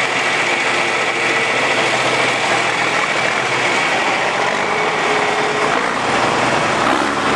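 A John Deere utility tractor's diesel engine running steadily as the tractor drives past close by, towing a box leveler over the dirt track.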